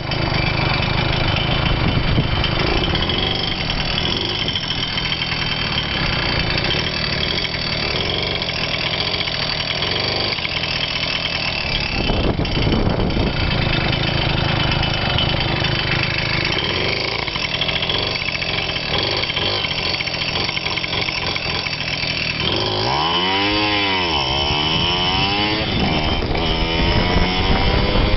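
Moped engine running while the moped is ridden, with one quick rise and fall in pitch a little over twenty seconds in.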